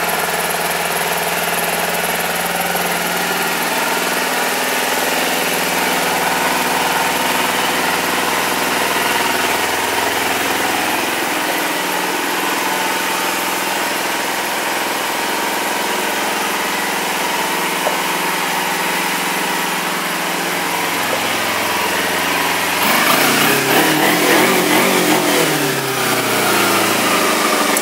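2009 Kawasaki Ninja 250R's 249 cc parallel-twin engine idling steadily, then revved up and down a few times over the last five seconds. The seller suspects it will need its carburettors serviced.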